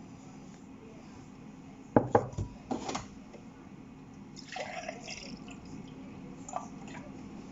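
Kitchen handling sounds over a steady low hum: a few sharp knocks about two and three seconds in, then a brief splash of liquid around halfway.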